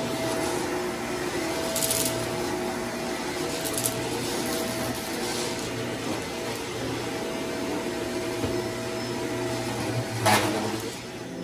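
Vacuum cleaner running steadily on carpet, its motor giving a constant hum. Three brief crackles, about two seconds in, about four seconds in and near the end, are typical of grit crunching up the wand.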